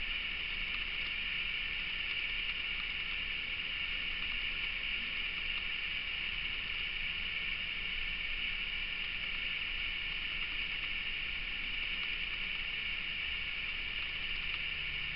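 Steady hiss of background noise that stays even throughout, with no distinct sounds over it.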